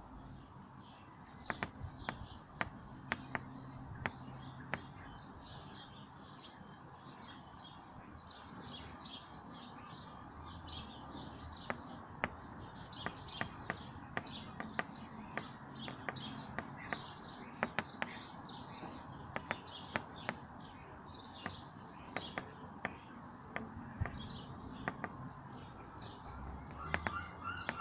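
Sparrows chirping over and over, with many sharp taps scattered among the chirps. Near the end a lower, rapidly repeated call starts.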